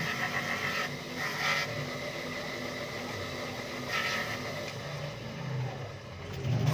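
Motor-driven grinding wheel running while a steel knife blade is ground on it: a rasping hiss of steel on stone comes in three strokes, in the first second, at about a second and a half, and again at about four seconds, over the motor's steady hum. The hum stops about five seconds in.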